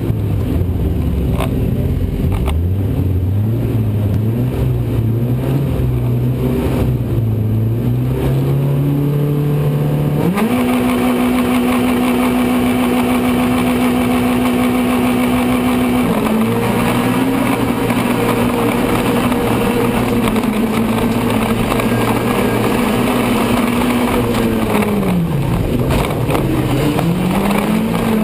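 Autocross race car's engine heard from inside the car. It is revved in rising steps, then held at a steady high pitch from about ten seconds in while the car waits on the start line. It then pulls away at high revs, and near the end the pitch drops sharply and climbs again.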